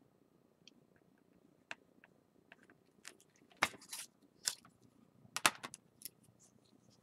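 Pen scratching on a paper worksheet in a few short strokes, then louder scattered rustles and taps of hand and paper, the loudest about halfway through and again about two-thirds of the way in.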